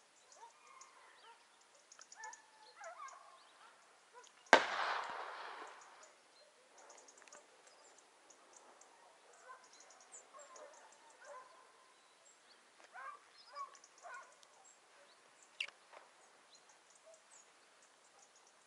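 A single shotgun shot from some distance about four and a half seconds in, with a tail that dies away over a second or so. Around it are faint, scattered calls of scent hounds baying on a hare's trail.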